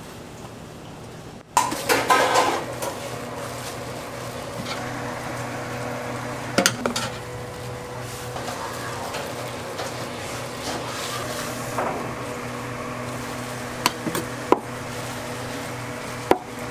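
Kitchen clatter of metal utensils against pans and trays: a burst of clanking about two seconds in, then scattered sharp clinks over a steady hum.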